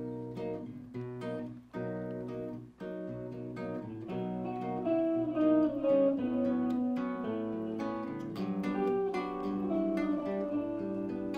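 Acoustic guitar and electric guitar playing an instrumental song introduction together, a run of plucked notes and chords without vocals.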